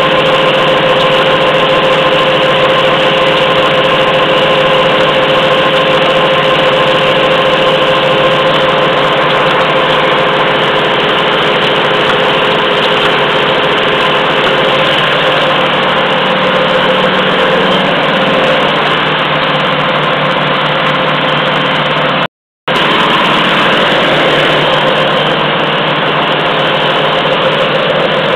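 Automatic pocket tissue machine running steadily, a loud, even mechanical noise with a constant hum. It cuts out completely for a moment near the end, then carries on.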